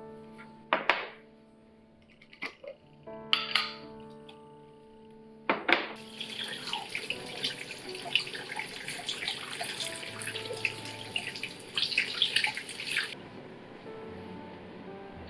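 Kitchen tap running into a sink for about seven seconds, stopping abruptly, with dishes clinking. A few sharp clinks of dishes come before it.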